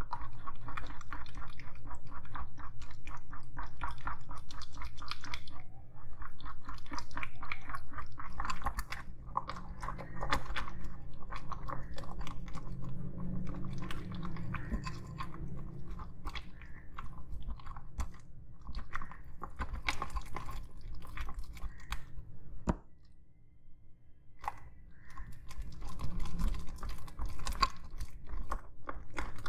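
Plastic spoon stirring and folding thick, sticky homemade slime in a glass bowl: a dense run of small wet clicks and crackles that eases off briefly about two-thirds through.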